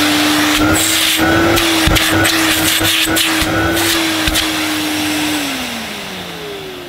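Hoover Galaxy 1100SE cylinder vacuum cleaner running at full power, a steady motor whine over rushing air, with a few light knocks. About five seconds in it is switched off and its pitch falls away as the motor winds down.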